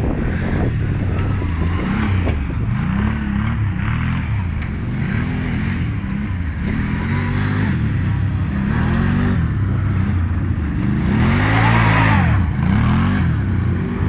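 Can-Am ATV engines revving up and down in quick repeated swells, about once a second, as the quads ride around. They are loudest as one passes close, a couple of seconds before the end.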